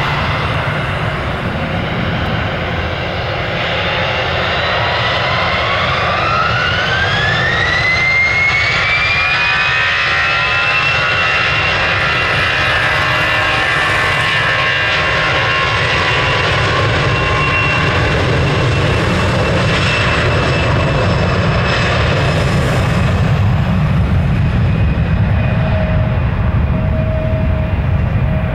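Airbus A320's twin jet engines spooling up to takeoff thrust: a whine that climbs in pitch over several seconds, then holds steady. The engine rumble builds as the aircraft accelerates down the runway.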